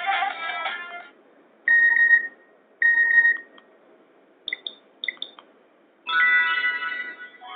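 Nokia 5700 XpressMusic ringtones and alert tones played through the small speaker of a Nokia 220 4G phone. The end of a melodic ringtone gives way to two separate steady beeps, then a pair of short high chirps, and a new ringtone starts about six seconds in.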